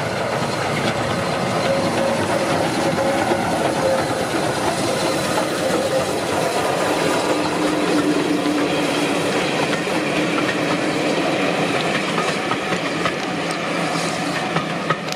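Steam locomotive 34046 Braunton, a rebuilt Bulleid West Country class Pacific, running tender-first past at close range with its train of coaches: a steady, loud clatter of wheels on the rails, with a few sharper clicks near the end.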